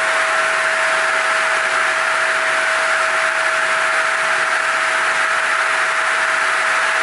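Lignuma TR 800 disc sawmill running steadily with its chain feed conveyor moving: an even mechanical whir with one clear steady tone in it.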